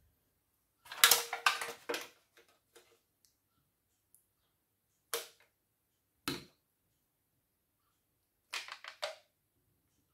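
A metal spoon clinking and scraping against a glass bowl and a small plastic container while creamy fruit salad is scooped and packed. There is a quick run of clinks about a second in, single sharp clinks around five and six seconds, and another short run near the end.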